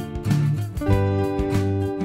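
Background instrumental music with a steady beat and a moving bass line under sustained melody notes.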